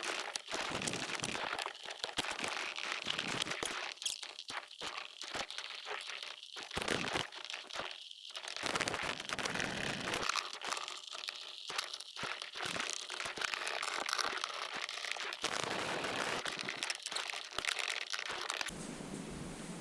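Irregular crinkling and rustling of parts being handled, with scattered light clicks and knocks.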